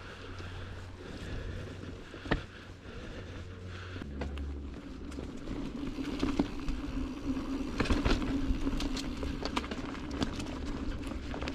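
Mountain bike being ridden along a rocky singletrack trail: tyre rumble and wind on the microphone, with a sharp knock a couple of seconds in. About halfway through, a denser clatter of knocks and rattles from the bike over rough ground sets in.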